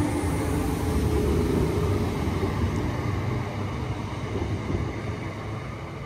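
A train passing through the station, its low rumble and rail noise fading steadily as it moves away.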